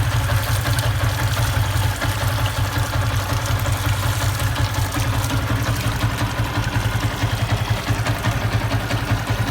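Yamaha Y15ZR motorcycle's single-cylinder four-stroke engine idling steadily at operating temperature, with an even, fast low pulse.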